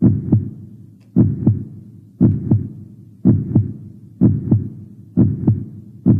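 Heartbeat sound effect: a deep double thump, lub-dub, repeating about once a second, each beat fading away before the next.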